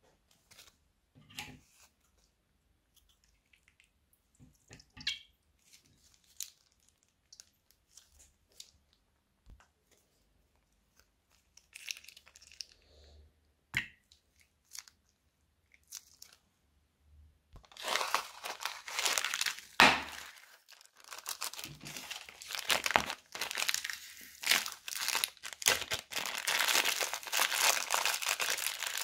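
Plastic bags handled by hand: a few faint rustles and soft squeezes at first, then from about two-thirds of the way in, continuous loud crinkling and tearing as a plastic packet is torn open.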